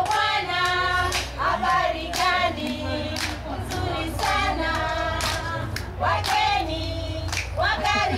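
A group of women singing together in a call-and-response style song, with hand claps about once a second.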